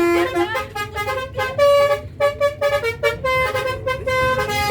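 Basuri telolet multi-tone bus horn playing a melody: a quick run of short and held horn notes that jump in pitch several times a second, over a low rumble.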